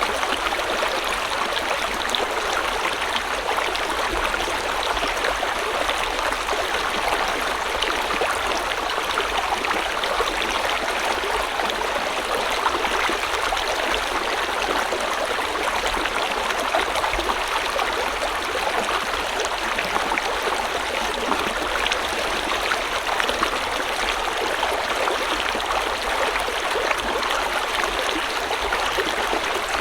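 River or stream water flowing steadily over rocks: a continuous rushing and babbling with many small splashes.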